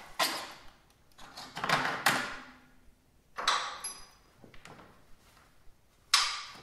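A Ski-Doo Pilot TS plastic snowmobile ski being worked loose from its spindle once the mounting bolt is out: several short scraping, sliding clunks, with a brief metallic ping about four seconds in.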